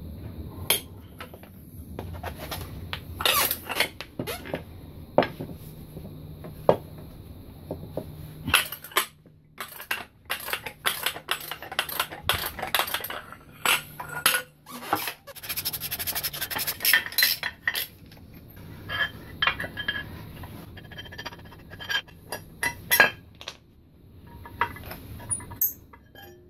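Irregular metal clanks and clinks as a vintage Cardinal 6B Speed-Vise is taken apart on a concrete floor, its steel parts and the tools knocking against each other.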